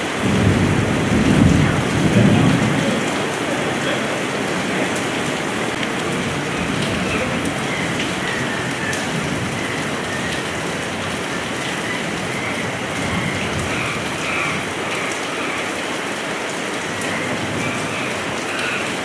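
Heavy rain falling steadily, with a low rumble of thunder in the first few seconds.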